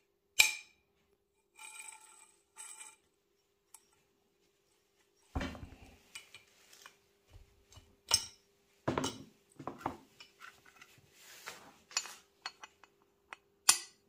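Scooter crankshaft and steel parts handled on a metal workbench: a sharp click, two short ringing rattles, a heavier knock about five seconds in, then a string of irregular metallic clicks and knocks as a hand tool works against the crankshaft.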